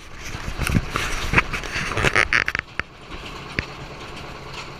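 Hay wagon towed behind a farm tractor rattling and clanking over bumps, a quick irregular clatter for the first two and a half seconds, then settling to a steady low tractor-engine drone with one more sharp knock.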